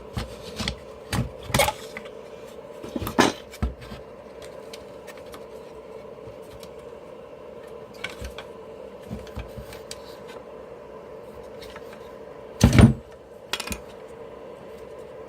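Scattered clicks and knocks of hand tools and plastic casing parts being worked during the teardown of a small electric blower, a cluster in the first few seconds and one louder knock near the end, over a faint steady hum.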